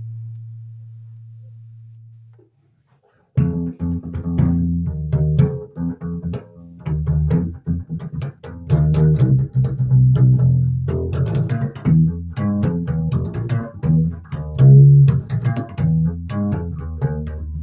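Electric bass guitar played solo: a held low note fades and is cut off about two and a half seconds in, then after a short pause a busy line of quickly plucked notes starts and runs on.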